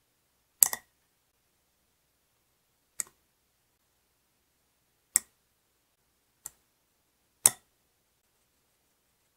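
A small metal measuring spoon tapping against a wire-mesh sieve as spices are tipped in: five sharp clicks spaced a second or two apart, with nothing between them.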